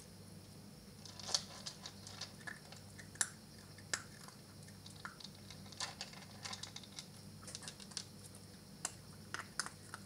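Maltese puppy eating dry kibble: irregular small crunches and clicks as it picks pieces from a plastic bowl and off the floor and chews them.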